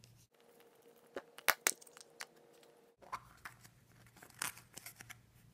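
Plastic surprise egg being handled and pried open: a series of sharp clicks and short crinkling rustles, with two louder clicks about a second and a half in.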